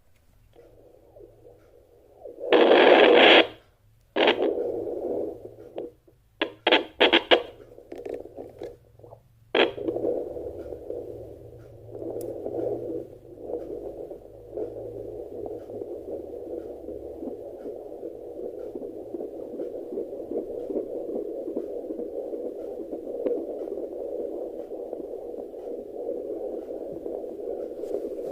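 Home fetal Doppler monitor's speaker: several loud scratchy bursts over the first ten seconds, then a steady whooshing static with slight swells, the sound of the probe picking up signal from inside the belly.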